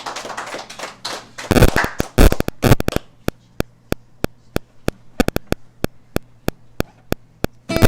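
A few loud knocks, then a steady run of single sharp taps at about three a second.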